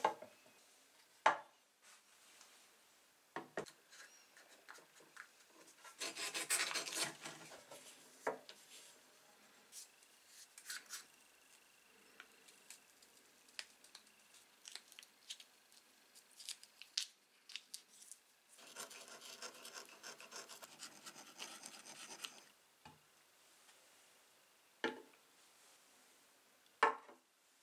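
Masking tape pulled off its roll in two rasping stretches of a few seconds each as it is wrapped around a polished steel hammer head. Between and after them come a few sharp knocks as the hammer head, and near the end a bottle and a glass, are set down on a hard board.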